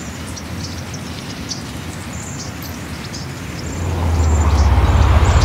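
Birds chirping in short repeated calls over a steady low rumble. About four seconds in, a deeper rumble and hiss swell up and grow louder.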